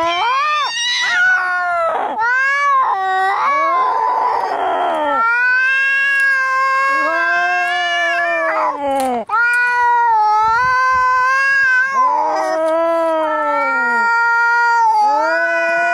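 Angry cats caterwauling as in a fight: long, drawn-out yowls that rise and fall in pitch, one after another, with a harsh hiss about four seconds in.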